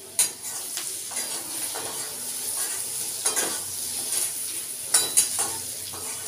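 Potato pieces frying in a metal kadai, a steady sizzle, while a metal spatula stirs them, scraping and knocking against the pan. Sharp knocks come just after the start, around three seconds in, and twice close together near five seconds.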